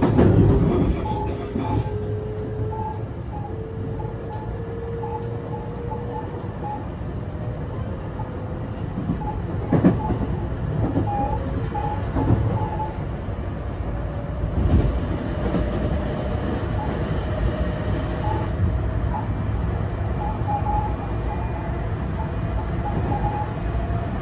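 Running sound of a JR West 223 series 2000-subseries train, heard inside motor car MoHa 222-2007: a steady rumble of wheels on rail, with the whine of its Mitsubishi IGBT-VVVF-driven traction motors rising slowly in pitch as the train gains speed. A few sharper knocks from the track come around the middle.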